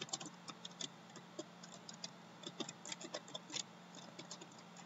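Computer keyboard keys clicking in quick, irregular runs as words are typed, over a faint steady low hum.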